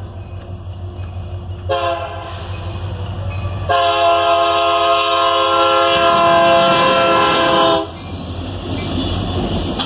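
Union Pacific locomotive's air horn, sounding as a chord: a short blast about two seconds in, then a long blast of about four seconds, the closing short-long of a grade-crossing warning. Under it the diesel engine rumbles, and near the end the noise of the train passing close by takes over.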